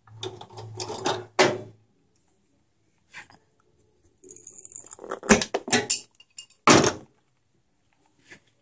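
Tools and small objects being handled in a workshop: scattered clinks and clatter, with a few loud sharp knocks about five to seven seconds in.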